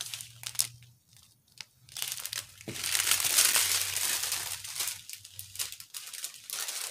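Small clear plastic bags of diamond painting drills crinkling as they are handled, quiet at first and then a dense, crackly crinkling from about two seconds in that tapers off near the end.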